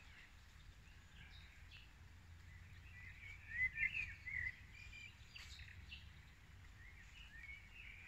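Birds chirping, a scatter of short calls that grows busiest about halfway through, over a faint steady low rumble.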